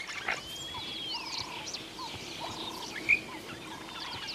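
Wild animal calls: a long whistle that rises and falls, several short calls and scattered high chirps, with a sharper chirp about three seconds in, over a faint outdoor background.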